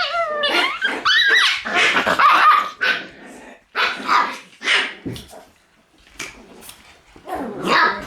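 Shiba Inu puppies yapping and barking in high, pitch-bending calls, busiest in the first few seconds, then a few short barks and a brief lull before the yapping picks up again near the end.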